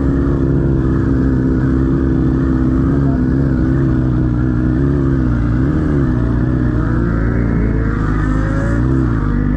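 Vehicle engines running at a steady idle, with short blips of revs about five and nine seconds in, and a second engine rising in pitch as it revs up in the last few seconds.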